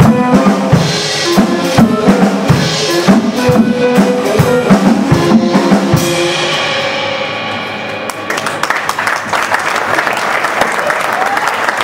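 Live band music, drum kit and horns playing a rhythmic passage, ends about six seconds in on a ringing final chord that fades away. About two seconds later the audience breaks into applause.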